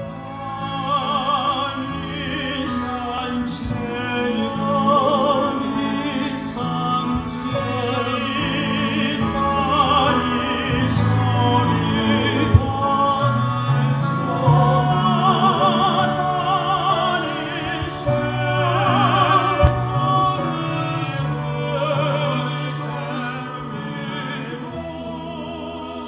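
Classical operatic singing with wide vibrato over a held instrumental accompaniment.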